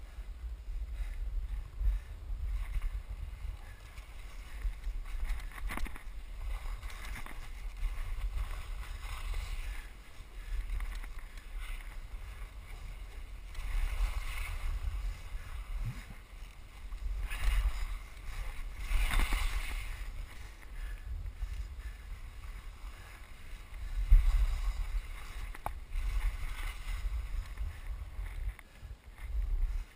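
Wind buffeting the microphone of an action camera moving fast downhill, a steady low rumble that surges in gusts. Over it, the hiss and scrape of edges carving turns on packed snow swells every few seconds, loudest a little past the middle.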